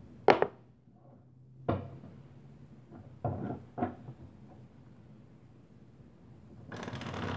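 Tarot cards handled at a table: a few sharp knocks as the deck is picked up and set down, then near the end the cards begin to be shuffled with a rising rustle.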